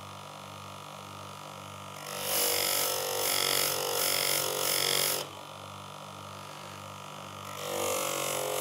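Sharpening machine running with a steady motor hum, and a chisel held twice against its spinning leather honing wheel, charged with polishing compound. Each contact gives a hissing grind of about three seconds: the first about two seconds in, the second starting near the end.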